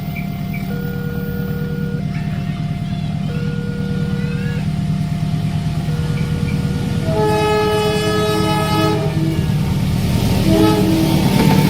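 Railway level-crossing warning alarm sounding its two alternating tones while a train approaches. About seven seconds in, the locomotive horn gives a long blast, then a shorter one near the end, over a low rumble that grows louder as the train nears.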